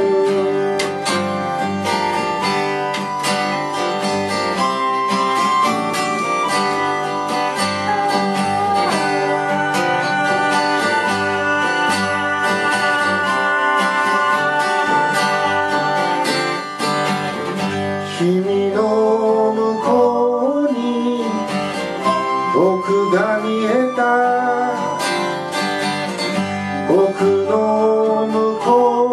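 Live acoustic band playing an instrumental passage: strummed acoustic guitar, plucked double bass and held notes from a keyboard harmonica. A voice glides in pitch over it in the second half.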